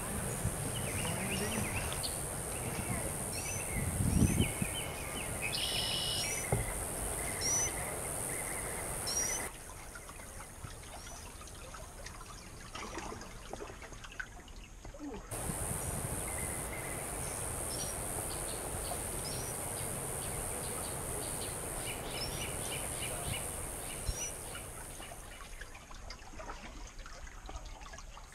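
Birds singing over quiet outdoor ambience: a short rising chirp repeated about once a second, over a steady high hiss. For about six seconds in the middle the birdsong drops out and it goes quieter.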